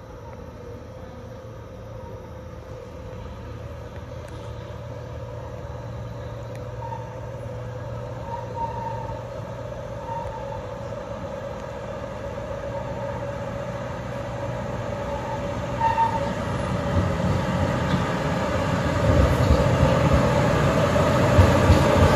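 Diesel cane-train locomotive hauling loaded sugarcane bins, approaching along street-running track: its engine drone and the rumble of wheels on rail grow steadily louder, heaviest near the end as it arrives. A few short, faint toots sound partway through.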